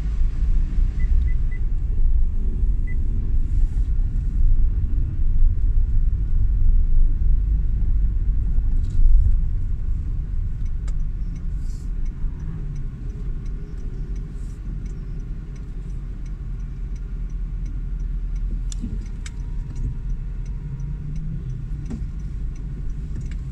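Low, steady rumble of the dual-clutch Honda Vezel's engine and road noise heard from inside the cabin while it is driven slowly in low gears. It is a little louder for the first ten seconds or so and then eases off.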